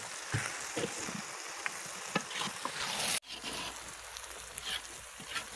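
Plov sizzling and hissing in a cast-iron kazan as a slotted skimmer turns the rice, with scattered light clicks and scrapes. The hiss breaks off abruptly about three seconds in and resumes.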